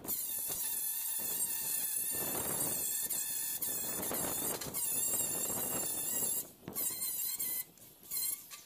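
Cordless angle grinder with its disc grinding the edge of a steel car door, a steady high-pitched whine with sparks flying. The grinding stops briefly about six and a half seconds in, resumes for under a second, and ends with a short final touch near the end.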